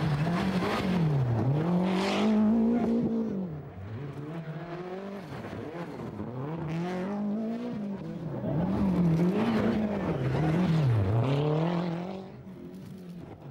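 Rally cars, a Lancia Delta Integrale and a Toyota Celica GT-Four, driven flat out on a gravel stage, the engine note climbing and dropping again and again with gear changes and lifts. It is loud for the first three seconds, quieter for a while, loud again from about eight to twelve seconds, then fades.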